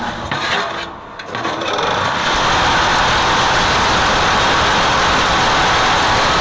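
Motor of a hydraulic concrete-block press starting up about a second in, then running loud and steady.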